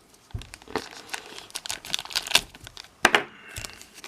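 Plastic packaging crinkling and rustling as it is handled by hand, a run of quick crackles and clicks with a louder crackle about three seconds in.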